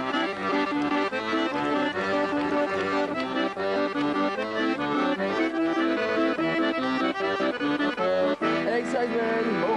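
Accordion playing a lively traditional folk tune, a melody over held chords.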